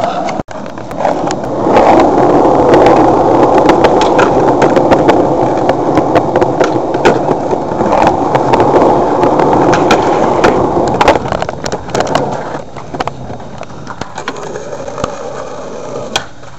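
Skateboard wheels rolling on concrete, a loud steady rumble broken by sharp clacks of the board. The rolling dies down about eleven seconds in, leaving only scattered clacks.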